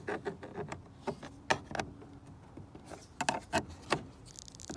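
A plastic trim tool prying at a van's sliding-door trim panel: a series of sharp clicks and knocks, a few scattered at first, then a quick cluster of them a little past halfway.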